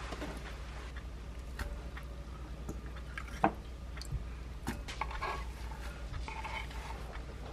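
Kitchen handling sounds as sliced onion and shredded napa cabbage go into a glass mixing bowl of buckwheat noodles: scattered light clicks and rustles, with one sharper knock about halfway through.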